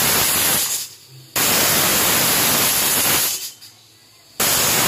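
Aluminium pressure cooker whistling: its weighted vent lets off loud hissing bursts of steam. One burst ends about a second in, a second runs about two seconds, and a third starts near the end. The whistles mean the cooker is at full pressure, and they are counted to time the cooking of the dal and vegetables.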